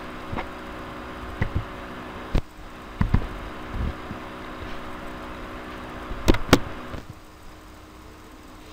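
Scattered sharp clicks and knocks, about eight in all, the loudest a close pair about six seconds in, over a steady low hum that stops about seven seconds in.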